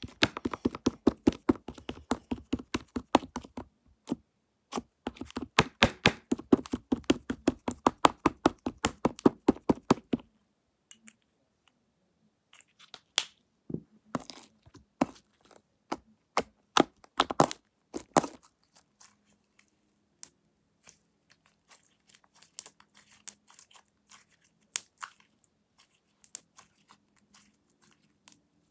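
Homemade slime being kneaded and squeezed by hand, giving off a fast run of wet clicks and pops for about ten seconds. The clicks then come sparser, and grow faint in the second half.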